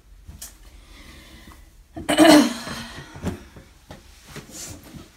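A short, loud breathy huff about two seconds in, over soft rustling and handling noise.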